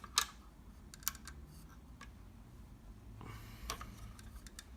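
Hard plastic Lego pieces clicking and tapping as the built model is handled: a few scattered sharp clicks, the loudest just after the start.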